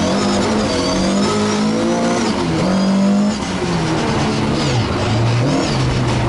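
Ford Escort MkI rally car's engine heard from inside the cockpit, revving up and down as it is driven hard, with a brief lift off the throttle about three seconds in.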